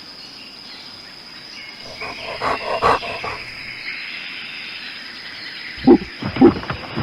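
An animal calling: a few rough, noisy calls about two seconds in, then two loud, short calls near the end.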